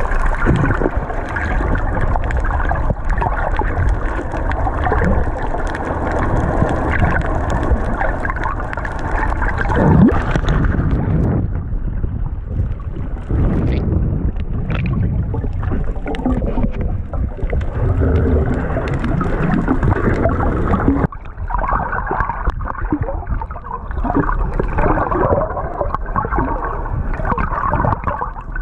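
Muffled rushing and gurgling water heard through an action camera's waterproof housing held just under the surface, with bubbling and dull knocks. From about eleven seconds in the sound turns duller for around ten seconds, then brightens again.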